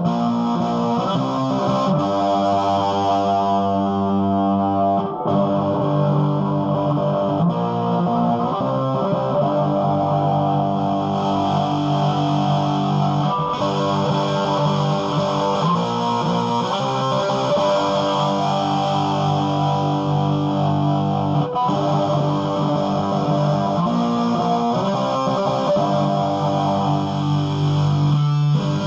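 Electric guitar played through a mid-1980s Marshall Lead 12 solid-state combo amp on its high input with the gain all the way up and the volume about halfway, giving a distorted tone. Sustained chords and notes are played without a break.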